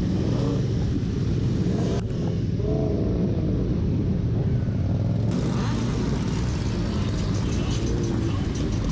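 Motorcycle engines idling together, a steady low rumble from a crowd of sport bikes.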